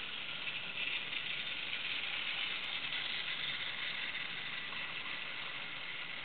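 Hornby Dublo three-rail OO gauge freight train running over points on metal track: the locomotive's electric motor and the wagons' wheels on the rails make a steady running noise, a little louder for a few seconds as the train passes closest.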